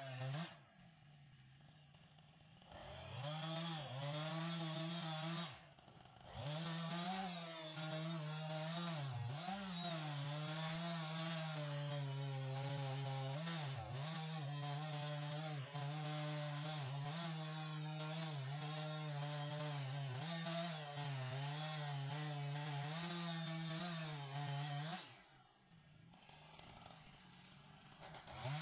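Chainsaw cutting into a hemlock trunk, held at high revs with its pitch dipping and wavering as the chain loads up in the wood. The engine falls away about a second in, briefly again around six seconds, and for a few seconds near the end, then picks back up.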